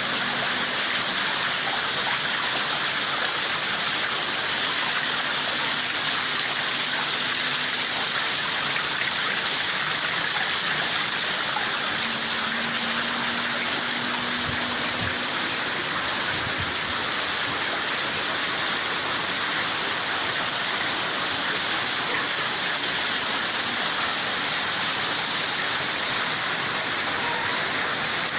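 Heavy rain pouring steadily, an even hiss with no thunder.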